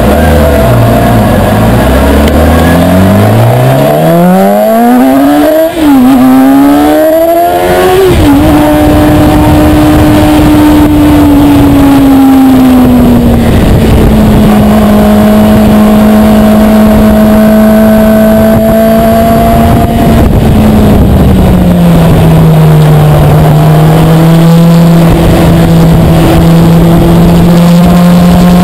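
2013 Kawasaki ZX-6R 636's inline-four engine revving hard through the lower gears, with two quick upshifts about six and eight seconds in. The engine note then holds steady and drops lower twice as the bike slows.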